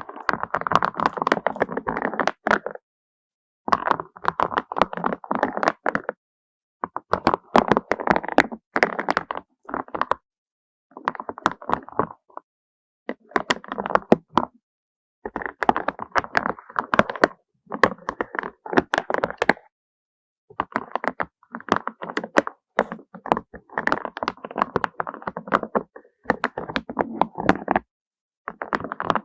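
Small hard objects clattering and tapping in quick runs of clicks, each run lasting one to three seconds with short silent pauses between them.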